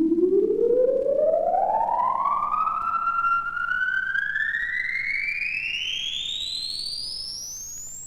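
A single pitched tone, siren-like, gliding smoothly and steadily upward from a low pitch to a very high one, fading as it climbs.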